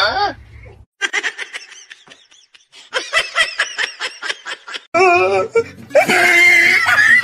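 A person laughing in a quick run of short, high-pitched giggles, followed about five seconds in by a louder, wavering voice sound.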